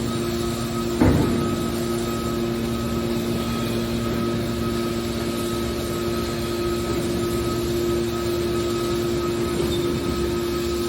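Hydraulic scrap metal baler running: the steady hum of its electric motor and hydraulic pump, with a single sharp metal knock about a second in.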